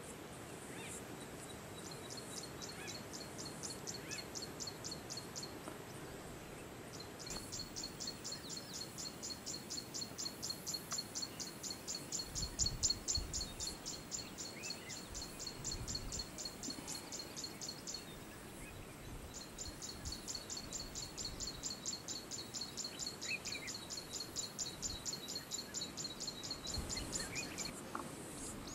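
Outdoor ambience with a high, evenly pulsed chirping call repeated several times a second, in three long runs with short breaks between them. A few low rumbles mix in, the loudest about halfway through.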